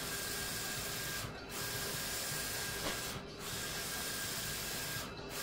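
Roland wide-format inkjet printer printing decals: the print-head carriage sweeps across with a steady hiss, dropping off briefly about every two seconds as it reverses at the end of each pass.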